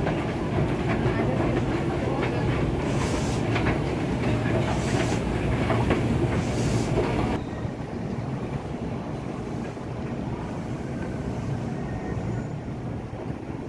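Electric KRL commuter train at a busy station platform: a loud, dense din with a few brief sharp high-pitched noises, then, about halfway through, a quieter steady low rumble as the train runs in along the platform.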